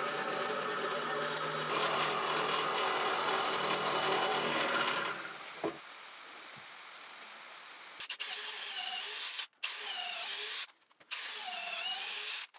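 Benchtop drill press running steadily as its bit bores through a hardwood board, for about five seconds. Then a Makita cordless drill runs in three short bursts of about a second each, its pitch dipping and recovering as it drills into the end of a board.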